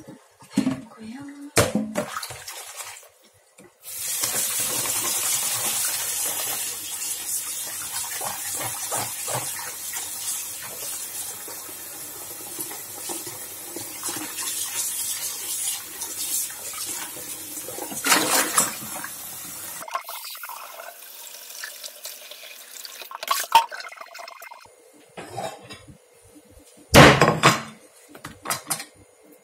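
Kitchen tap running into a plastic bowl in a stainless-steel sink while garlic chives are swished and rinsed by hand. The water stops about two-thirds of the way through, leaving scattered handling clicks and one sharp knock near the end.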